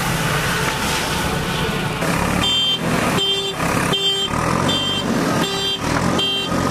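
Heavy diesel engine of a backhoe loader or tipper truck running steadily, joined about two and a half seconds in by a reversing alarm beeping about once every two-thirds of a second.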